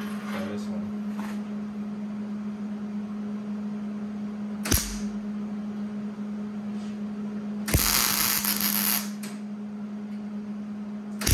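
Wire-feed (MIG) welder spot-welding 3/16-inch steel: a single click about five seconds in, then a loud burst of arc noise lasting about a second, and another burst starting right at the end, over a steady low hum.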